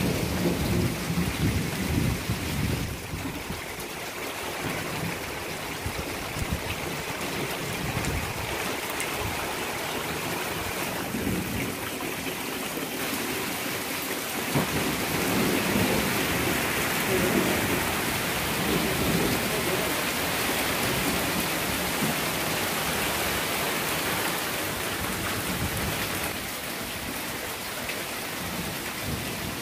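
Steady rain falling on trees and bare ground, with low rumbles of thunder in the first couple of seconds and again around the middle.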